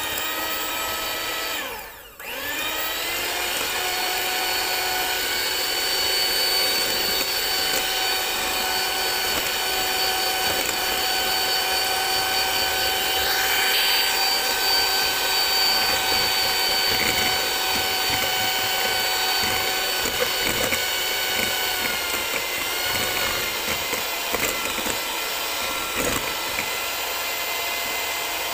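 Electric hand mixer running, its beaters whisking eggs and flour into cake batter in a glass bowl. The motor whine drops out briefly about two seconds in and rises in pitch as it spins back up, then runs steadily.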